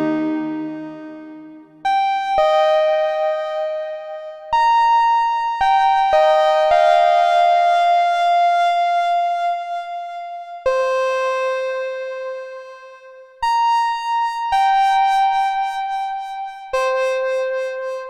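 Korg Minilogue xd analog synthesizer playing a slow, sparse melody in a bell-like electric-piano tone. Single notes start sharply a second or more apart, and each fades slowly under the next.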